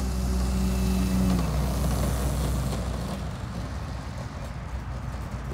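Electric motor and propeller of an RC Carbon Cub model plane humming at high throttle on a fast taxi. The pitch rises slightly, then falls away about a second and a half in as the throttle comes back. A low rumble runs underneath until about three seconds in.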